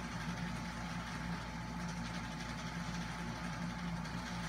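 A steady low hum with faint hiss underneath, unchanging throughout.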